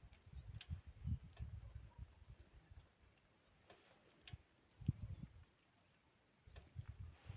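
Crickets giving a steady, high-pitched, unbroken trill, with low rumbles and bumps on the microphone and a couple of faint clicks.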